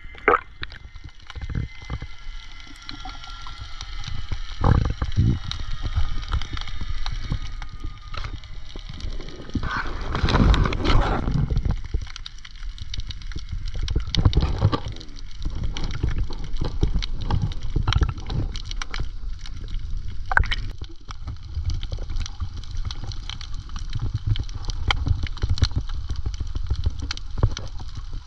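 Water gurgling and sloshing close to the microphone, with a constant low rumble and many scattered sharp clicks. A louder rushing surge comes about ten seconds in.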